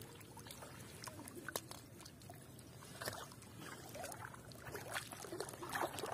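Fishing net being dragged through shallow water over mud: faint sloshing and small splashes, with scattered light clicks.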